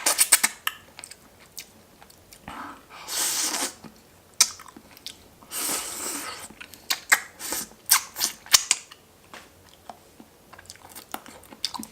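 Close-miked eating: chewing and crunching, with clusters of sharp crunches near the start and again in the second half. Two longer hissing sounds come about three and six seconds in.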